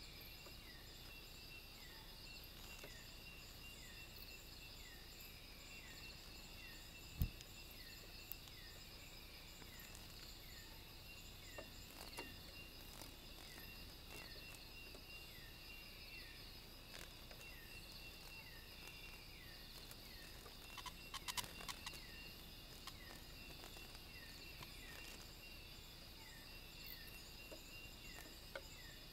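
Night-time insect chorus: several steady, high-pitched trills, with a short falling chirp repeated about every two-thirds of a second. A single thump comes about seven seconds in, and a brief cluster of clicks comes around twenty-one seconds in.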